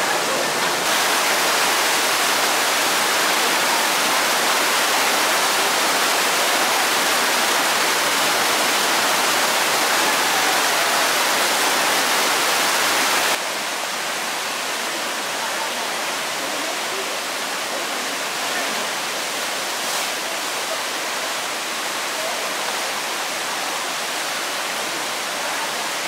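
Rushing, churning whitewater of a river rapids ride channel, a steady noise that drops somewhat in level about halfway through.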